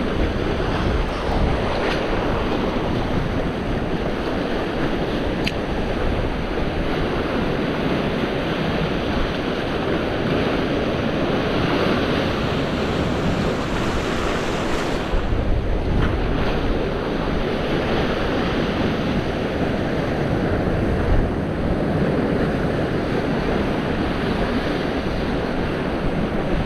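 Sea surf washing against a rocky shore, a steady rushing noise, with wind buffeting the microphone. A larger wave washes in, hissing more brightly, about halfway through.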